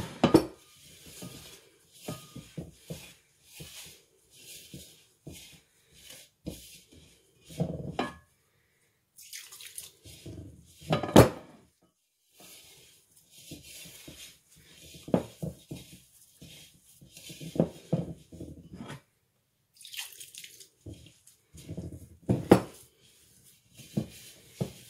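A hand rubbing and gathering damp semolina in a ceramic bowl to form rechta dough: irregular scraping and soft knocks of fingers and grains against the bowl, with a few sharper knocks, loudest about eleven seconds in and again near the end.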